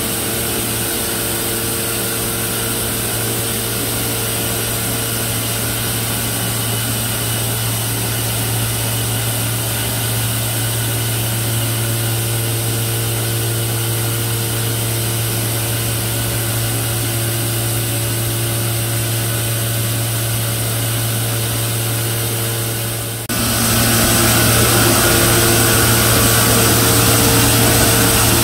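NFE A97 walk-behind shot blaster running steadily as it blasts a bridge deck: a constant electric motor and blast-wheel hum over the hiss of abrasive shot striking the surface. About 23 seconds in the sound jumps abruptly louder and brighter.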